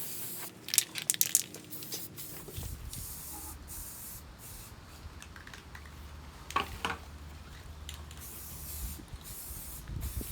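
Spray paint hissing in short, sharp bursts as frame parts are coated. A low steady hum starts about two and a half seconds in.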